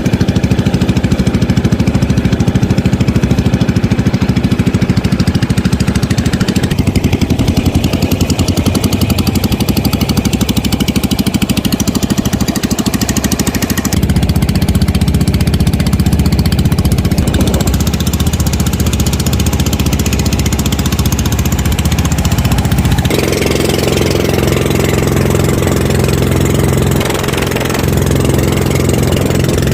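A small engine running steadily, its tone and loudness shifting abruptly about a quarter of the way in, near halfway, and again about three-quarters through.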